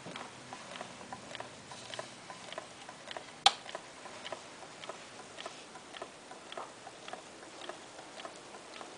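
Candle-heated homemade Stirling engine with a balloon power piston and CD flywheel, ticking as it runs: light, somewhat uneven clicks about two to three a second from its turning mechanism, with one sharper click about three and a half seconds in.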